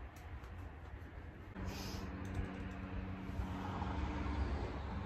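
Light, irregular clicks and taps of hands working on a downspout and its diverter fitting. A low steady hum comes in about a third of the way through.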